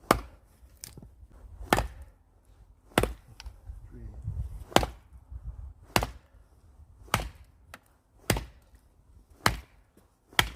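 A heavy blade chopping into dry birch wood: about nine sharp blows spaced a little over a second apart, with a few lighter taps between them.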